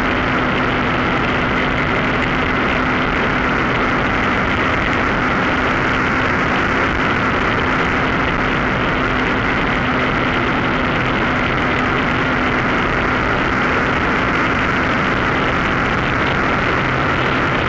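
Mosquito NRG powered hang-glider harness's small two-stroke engine and propeller running steadily at cruise power in flight, a constant drone mixed with rushing wind noise.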